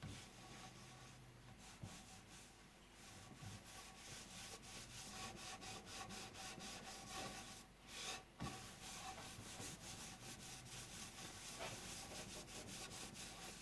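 A cloth scrubbing a toaster oven's glass door with a baking soda and lemon juice paste: faint, rapid, rhythmic back-and-forth rubbing strokes.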